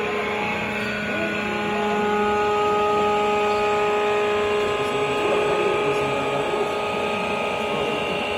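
Hydraulic core plug press machine running: a steady mechanical hum with several held whining tones, a little louder from about two seconds in.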